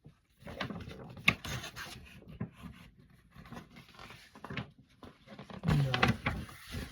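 Paper being handled and unfolded, rustling with light clicks and one sharp click about a second in. A short vocal sound comes near the end.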